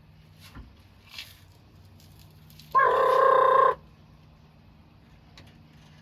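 Pay phone ringing: one ring about a second long, a little before the middle, over a faint steady low hum.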